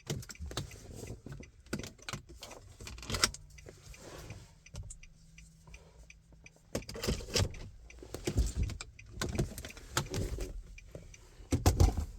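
Irregular clicks, knocks and rustles of handling, in uneven clusters, with a faint steady low hum for a couple of seconds a few seconds in.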